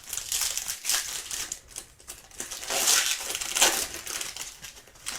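Foil trading-card pack wrapper crinkling as it is torn open and pulled off the cards, in uneven rustling swells.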